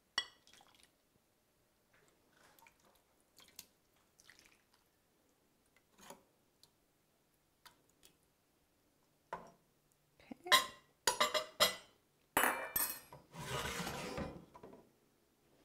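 A metal ladle clinking against a stainless steel stock pot and a ceramic bowl as soup is ladled out: a few light clicks at first, then a run of sharper clinks and knocks over the last few seconds. Near the end comes a short scraping stretch as the pot is pulled across the stove grate.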